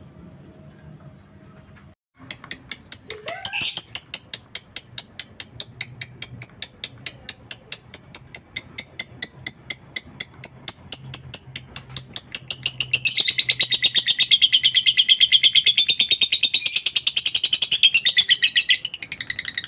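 Lovebird ngekek: a long, rapid, high-pitched chattering trill of evenly repeated notes, about five to six a second. It starts about two seconds in and gets louder and denser around thirteen seconds.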